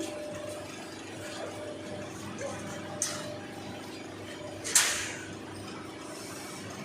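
CNC bending machine running with a steady hum, with two sharp knocks, about three seconds in and near five seconds; the second is the louder and trails off in a short hiss.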